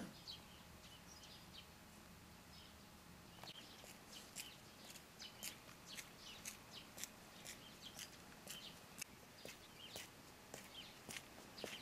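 Faint footsteps walking on a frozen, snow-edged path, crisp steps at about two a second beginning about four seconds in. A few faint bird chirps come before them.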